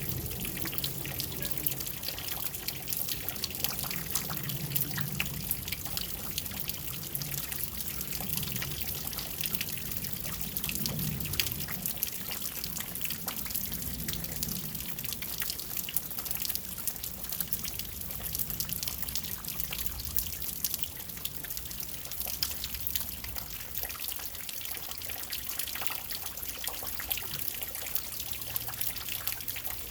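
Steady rain: a dense patter of individual drops with water trickling and dripping.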